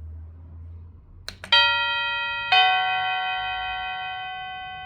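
Doorbell chime speaker playing a plain two-note ding-dong, a higher note and then a lower one about a second later, both ringing on and fading slowly. Two quick clicks come just before the first note.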